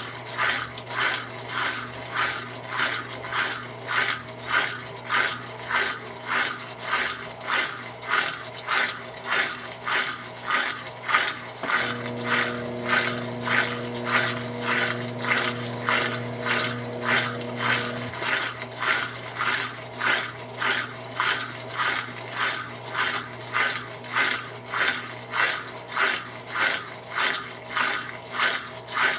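Consul Maré Super top-loading washing machine agitating its load in water: a rhythmic swish-swish about three times every two seconds over a steady motor hum, with an added hum from about 12 to 18 seconds in.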